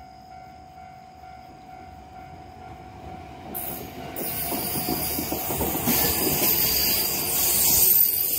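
JR West 521-series electric train running past at close range: wheels rumbling over the rails, building from about three and a half seconds in to its loudest near the end, over a steady level-crossing alarm tone.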